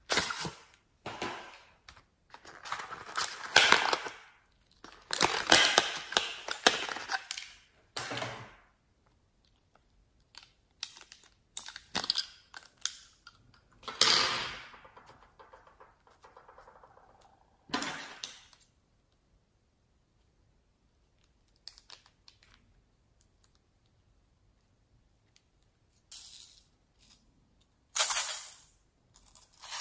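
Hands handling packaging: a cardboard lipstick box slid open and plastic lipstick tubes and a small plastic case handled, giving rustling, sliding and clicking in separate bursts with pauses between them. The busiest stretch is in the first eight seconds, with further bursts about halfway through and near the end.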